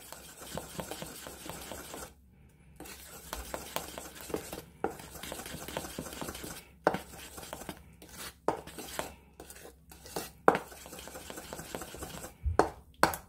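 A metal spoon stirring thick flour-and-egg batter in a stainless steel bowl: wet sloshing with the spoon scraping and clinking against the bowl, several sharper clinks, and a brief pause about two seconds in.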